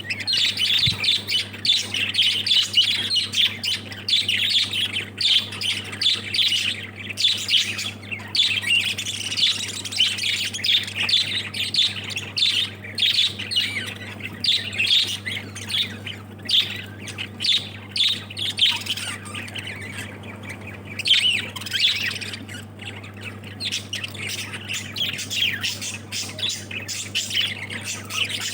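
A flock of lovebirds chattering: rapid, overlapping shrill squawks and chirps, many short calls a second, easing off briefly a little past the middle. A steady low hum runs underneath.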